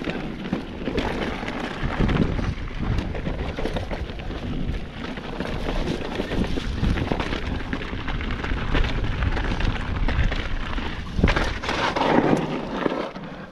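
Mountain bike rolling down a rocky trail: tyres rumbling and crunching over rock and loose stones, with the bike rattling over the bumps.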